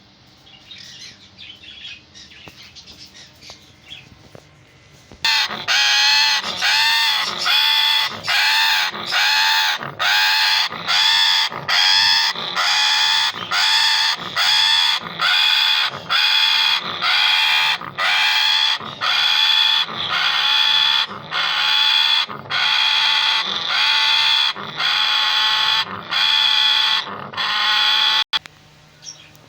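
Faint bird chirps, then about five seconds in a parrot starts a loud, rhythmic run of repeated calls, about one a second, each bending up and down in pitch, which stops abruptly near the end.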